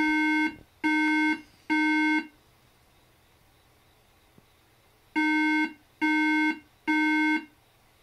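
Mid-2011 iMac A1311 sounding its startup beep code: three identical steady beeps, a pause of about three seconds, then three more. Three repeating beeps is Apple's code for memory (RAM) that is missing or fails its check.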